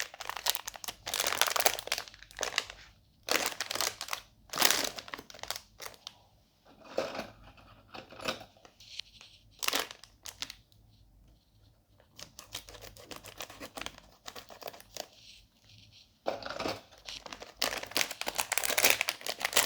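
Packaging being handled while a display is unpacked: irregular crinkling and rustling with some tearing, sparser in the middle and busier again near the end.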